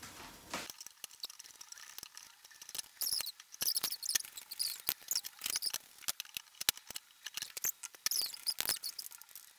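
Chicken pieces sizzling and crackling in an uncovered pan, with sharp clicks from a wooden spatula stirring them. The sound is dense and high-pitched, with little low end.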